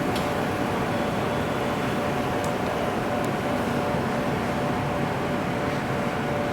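Steady background rumble and hiss at a constant level, with a faint hum and a few small clicks.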